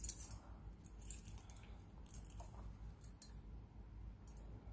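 Faint handling noise: a few soft clicks and rustles as a silver pendant is threaded onto a leather cord.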